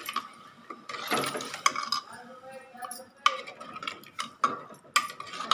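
Metal spoon stirring boiled chickpeas into masala in a steel pot, scraping and clinking sharply against the pot's sides several times, with a longer scrape about a second in.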